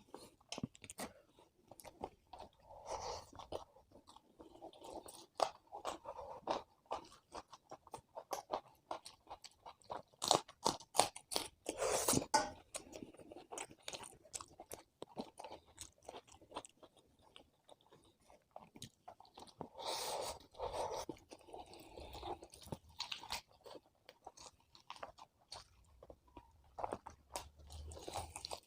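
Close-miked eating: chewing and biting with irregular crisp crunches and wet mouth clicks, growing louder in clusters a few times.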